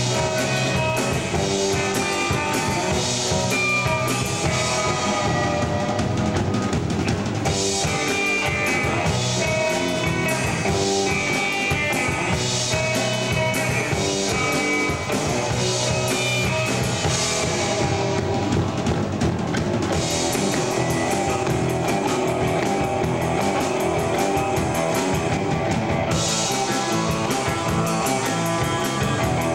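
Rock band playing: electric guitar and bass over a steady drum-kit beat.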